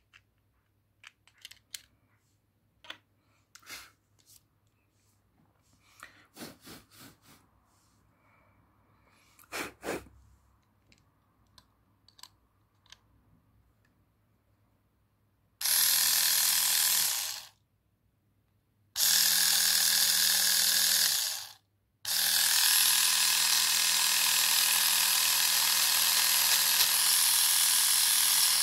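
Plastic clicks as the callus roller head is snapped onto the body, then the small battery motor of a Dearling 3-in-1 epilator set spins the foot callus roller with a steady mechanical whirr and low hum. It is switched on about halfway through, stops twice after a couple of seconds each, then keeps running.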